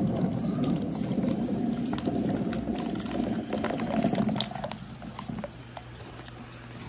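Water running and splashing into a tub of water, mixed with the rumbling rush of many large balls rolling down a perforated board and scattered small clicks. The rush dies down about four and a half seconds in, leaving a quieter steady trickle.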